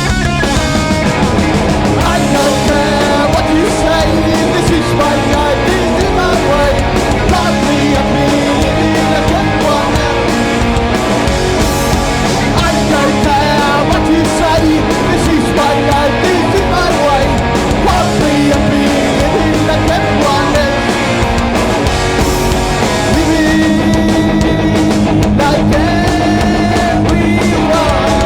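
Live punk rock band playing a song: distorted electric guitars, bass and drums, with some singing.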